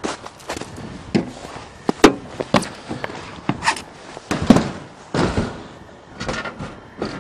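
A string of irregular clunks and knocks from a car's door and bodywork being handled, the loudest about two seconds and four and a half seconds in.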